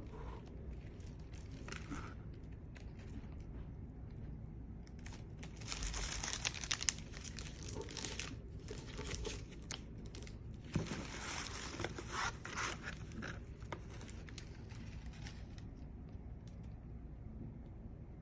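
Packaging being handled as products are unpacked and set out: paper and plastic rustling and crinkling, with light clicks and taps. It comes in two louder stretches, about six and eleven seconds in.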